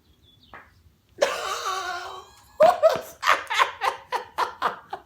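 A sweaty bare back peeling off a rubber horse-stall mat, letting out a raspy fart-like noise for about a second, followed by a run of quick laughter.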